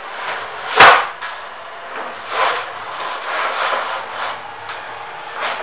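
Vinyl banner sliding and rustling as it rolls back into a roll-up banner stand's aluminium base, in several short swishes, with one sharp knock about a second in.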